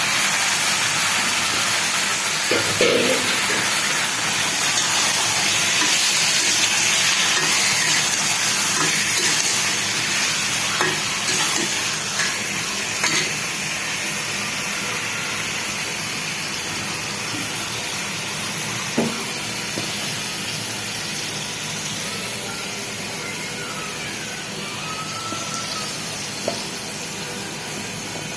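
Chicken pieces sizzling in hot oil with spice paste in a cooking pot. The steady hiss slowly grows quieter, with a few light knocks of a utensil.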